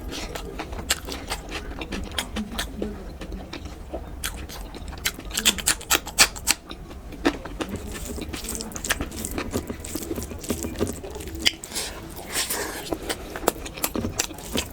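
Close-miked eating of khichdi and chicken curry: chewing with many irregular, sharp wet mouth clicks and smacks.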